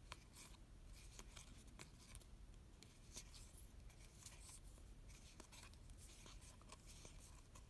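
Faint, irregular soft clicks and rubbing of baseball trading cards being slid one by one through the hand, close to near silence.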